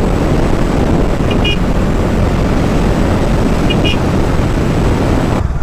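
Motorcycle on the move, with wind rushing over the microphone and the engine running underneath. Faint short double beeps come about every two seconds. The rushing noise cuts off sharply just before the end.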